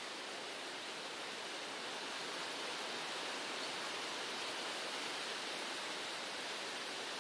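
Steady, even hiss of outdoor background noise, with no distinct events and almost nothing in the low end.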